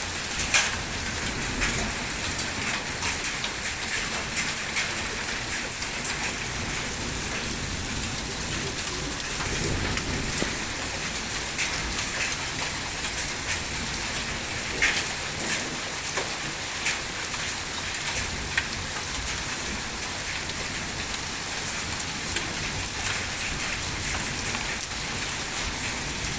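Heavy rain mixed with small hailstones, a steady hiss of falling water with now and then a sharper click of a stone striking.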